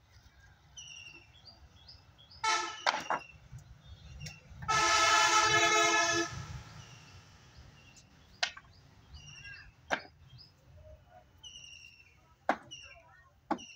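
Sawn wooden planks knocking and clattering as they are handled and stacked, with single sharp knocks every few seconds. A vehicle horn sounds once, about five seconds in, for about a second and a half, and is the loudest sound. A bird's short call repeats about once a second throughout.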